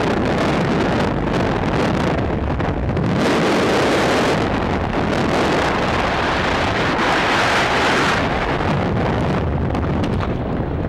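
Skydiving freefall wind rushing over the camera's microphone: a loud, steady rush of air, strongest in the middle and thinning in its highest part near the end.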